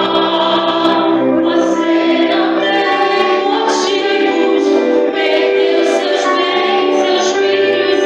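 Worship song sung by female voices with instrumental backing, the singers holding long notes.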